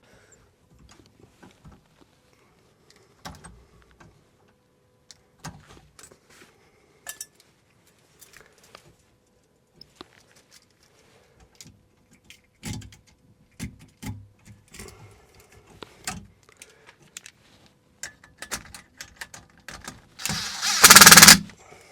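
Hand work on electrical wire with wire strippers: scattered clicks, snips and handling knocks, then a loud rustling scrape lasting about a second and a half near the end.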